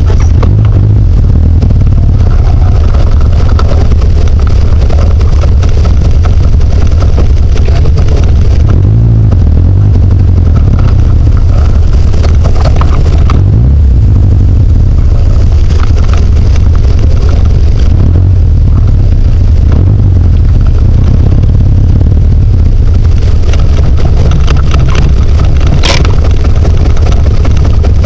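Birkin Seven's engine idling, loud and steady close to the in-car camera, with a single sharp click near the end.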